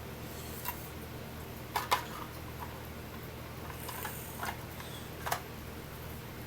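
A few scattered sharp clicks and taps of small plastic model pieces being handled, two of them close together about two seconds in, over a faint steady low hum.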